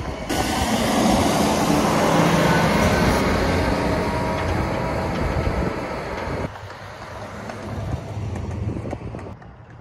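Concrete mixer truck's diesel engine and tyres going past close by, loud for several seconds with a low engine drone. About six and a half seconds in it cuts to quieter, distant road traffic.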